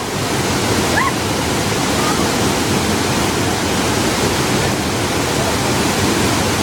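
Waterfall rushing with a loud, steady roar of falling water. A few short, high rising chirps come through near the start and about a second in.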